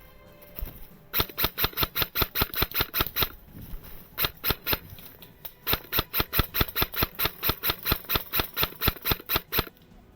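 Airsoft rifle firing rapid shots, about six to seven a second, in three strings broken by short pauses.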